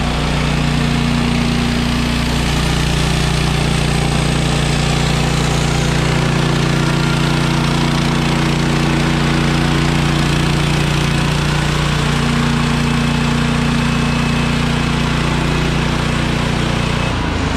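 Portable bandsaw mill's gas engine running steadily while its band blade saws through a log, the saw head pushed along by hand.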